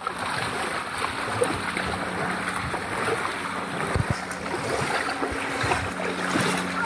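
Rain and splashing floodwater, a steady rushing noise with a faint low hum underneath and a couple of soft thumps.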